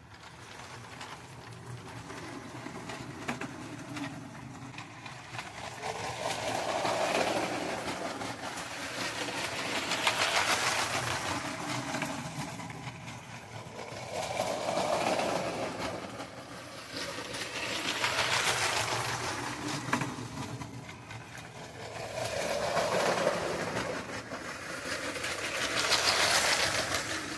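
Lego Power Functions train motor converted to run on 9V track, with metal O-gauge wheels, running along the rails pulling two carriages. It swells and fades about every three to four seconds.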